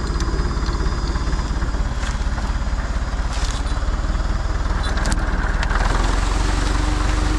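Tractor's diesel engine running with a low, even firing beat while pulling a tree. About six seconds in, the note deepens and grows slightly louder as the engine takes up more load.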